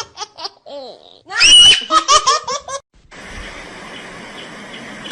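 High-pitched laughter in quick repeated bursts, with a shrill squeal partway through. It gives way to steady background noise for the last two seconds.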